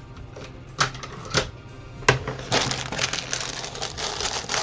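Small plastic Lego pieces clicking and clattering as they are tipped out onto a tray: a few separate clicks, then from about halfway through a dense rattle of many pieces.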